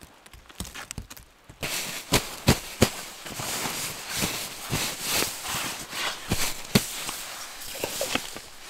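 Rustling of nylon and fabric camping gear being handled and laid out in a tarp shelter on a closed-cell foam sleeping pad, with sharp taps and knocks in between. It starts about a second and a half in, after a quieter stretch.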